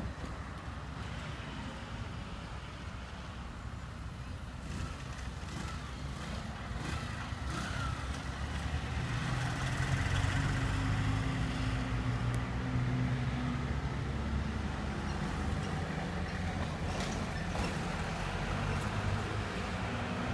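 Road traffic at a level crossing: a steady low rumble of passing vehicles, swelling about ten seconds in as a motorcycle's engine passes close, then easing off.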